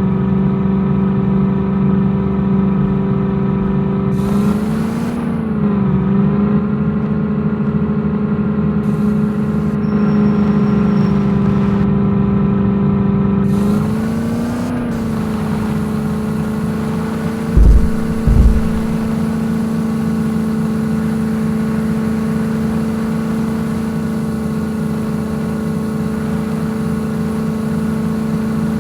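Jeep engine running at a steady speed, with two brief blips of revs about 5 and 14 seconds in. Two loud knocks come close together a little past the middle.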